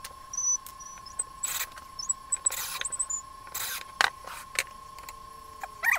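Sped-up workshop handling noise: scattered quick clicks and knocks of plywood model parts being handled on a workbench, with a few short high chirps, over a steady high tone.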